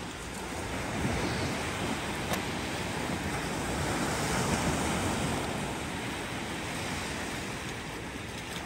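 Sea surf breaking and washing up the sand, a steady rush that swells about four seconds in, with wind on the microphone.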